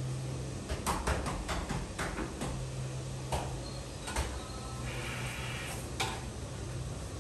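Irregular sharp clicks and knocks: a quick cluster of them about a second in, then single ones every second or so, over a low steady hum that comes and goes.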